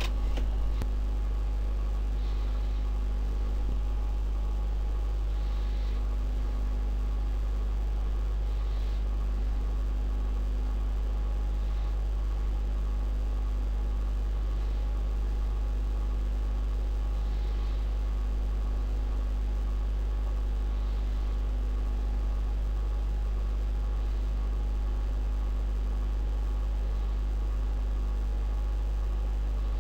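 Steady low electrical hum with a faint whir, unchanging throughout.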